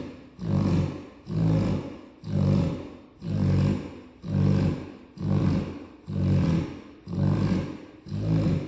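Cane Corso snoring loudly, a low, rasping snore about once a second in an even rhythm, each one starting sharply and trailing off.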